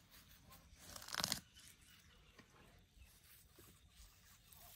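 African elephant calf's trunk tearing up short grass, with one loud rip about a second in and faint crackling of grass otherwise.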